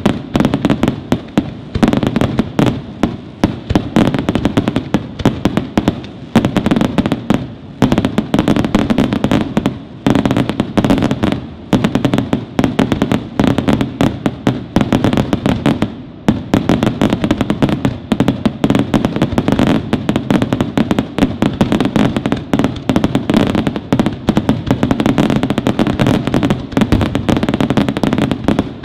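Aerial firework shells bursting in a dense, rapid barrage, one bang overlapping the next with only brief lulls.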